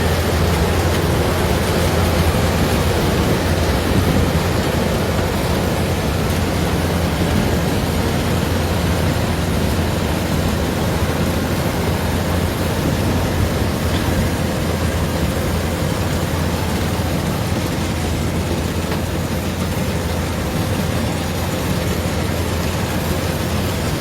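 Kubota DC-105 rice combine harvester running steadily, its diesel engine droning with a constant low hum.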